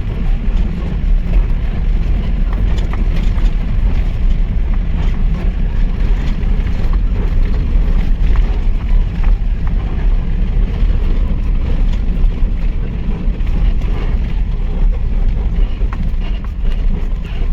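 Mahindra Pik-Up diesel pickup truck driving over rough ground: a steady, loud low engine and road rumble with scattered knocks and rattles.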